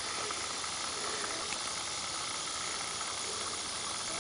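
Steady high hiss of an outdoor insect chorus, with no distinct clicks or strikes standing out.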